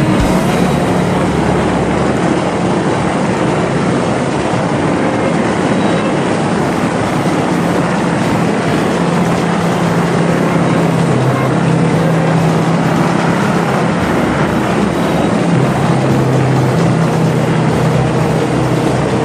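Motorbike engine running while riding, under a steady heavy rush of wind and road noise; the engine note shifts in pitch a few times.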